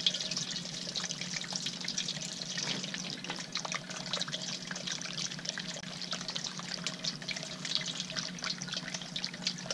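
Bird-bath fountain bubbler spouting water that splashes and trickles over stones into the basin, a steady dense patter with a steady low hum underneath.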